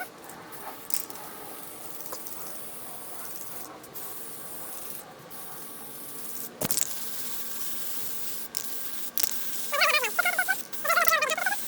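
Aerosol spray adhesive hissing from the can in long bursts with brief breaks, being sprayed onto a car headliner board; a sharp click about six and a half seconds in. Near the end come loud, squeaky pitched chirps.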